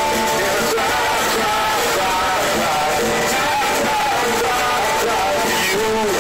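Live rock band playing loudly, heard through a phone microphone near the stage: electric guitars and a singing voice over a dense, steady mix.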